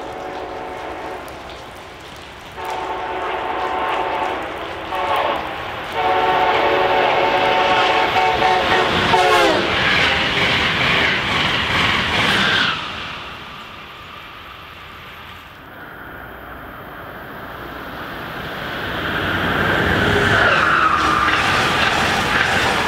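A passing train's horn sounds long, long, short, long, the standard warning signal, and the last blast drops in pitch as the train goes by at speed. The rush of the train passing follows and cuts off suddenly about thirteen seconds in. Near the end a rising rush builds again.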